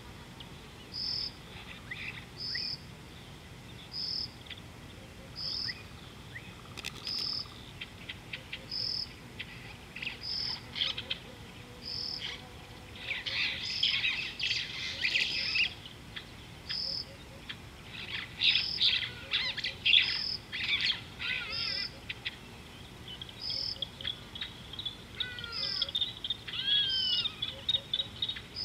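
Birds chirping and calling, several voices overlapping in clusters of quick chirps and sweeping notes, over a short high note repeated evenly about every second and a half.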